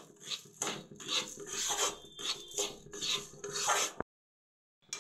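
Metal spatula scraping and stirring roasted gram flour and sugar around a metal kadai (Indian wok): repeated rasping strokes, a couple a second. The sound cuts off abruptly about four seconds in.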